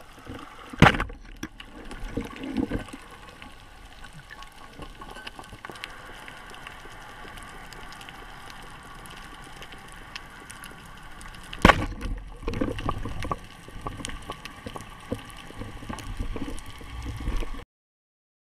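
Underwater sound through a camera housing on a speargun: a steady hiss with scattered crackling clicks, and two loud sharp knocks, one about a second in and one near twelve seconds. The sound cuts off shortly before the end.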